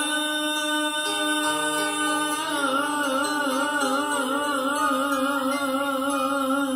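Vietnamese vocal music played over a pair of Bose 6.2 bookshelf speakers: a male singer holds one long note, which begins to waver in vibrato a couple of seconds in, over sustained accompaniment.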